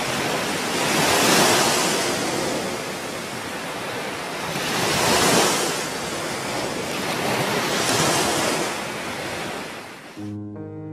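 Ocean surf with wind: waves wash onto the shore, swelling three times. Near the end the surf cuts off suddenly and soft instrumental music begins.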